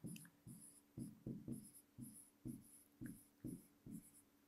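Faint scratching and tapping of a stylus pen writing on an interactive touchscreen board, in short strokes about twice a second as words are handwritten.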